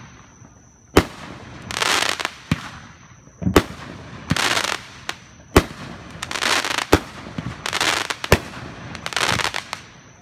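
Aerial fireworks going off: about six sharp bangs, one every second or so, alternating with bursts of hissing crackle from the sparks.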